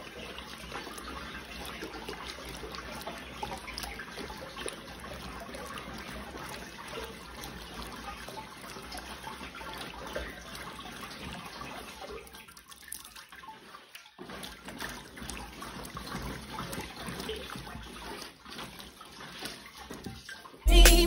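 A hand mixing and kneading a wet, coarse meal mash in a large aluminium basin, making continuous wet squishing and sloshing sounds with a brief lull about two thirds of the way through. Loud music cuts in abruptly at the very end.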